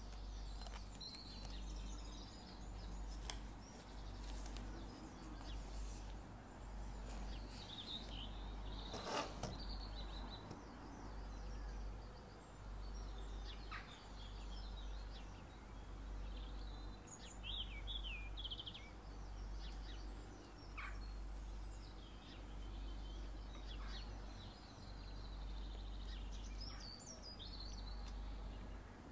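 Birds chirping on and off in the background over a steady low rumble, with a few sharp clicks and rustles as the cardboard box and foil wrapping of a perfume bottle are handled, one click about nine seconds in louder than the rest.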